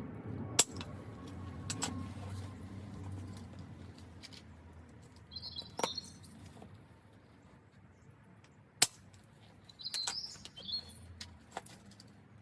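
Small birds chirping in two short bursts, with a few sharp clicks in between. The two loudest clicks come about half a second in and near nine seconds.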